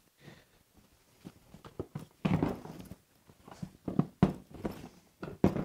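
Hard plastic Milwaukee Packout tool cases being lifted and set onto a stack, a series of separate knocks and clunks. The loudest comes about two seconds in.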